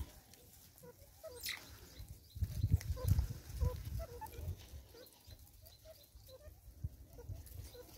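Banded mongoose giving soft short contact chirps, repeated irregularly several times a second. A low rumble comes in about two seconds in and is the loudest sound for a couple of seconds.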